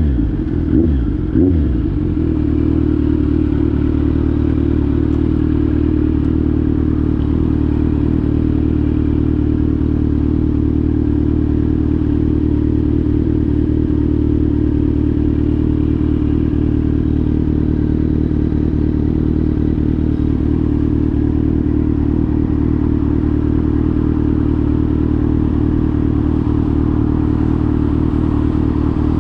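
Kawasaki Z900's inline-four engine through an SC-Project GP1 exhaust: a few short blips of the throttle, then a steady idle.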